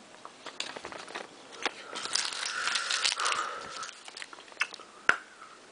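Mintia mint tablets being crunched and chewed in the mouth, loudest for about a second and a half from two seconds in, with scattered small clicks and one sharp click about five seconds in.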